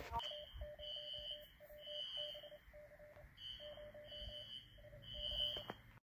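Faint electronic alarm beeps: a high tone in short bursts about once a second over a lower pulsing tone, played from a screen and picked up by a phone.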